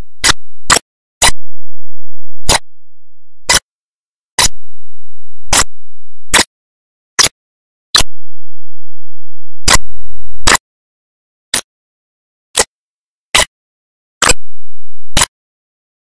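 A series of sharp clicks at uneven intervals, roughly one a second, with a faint low hum in a couple of places.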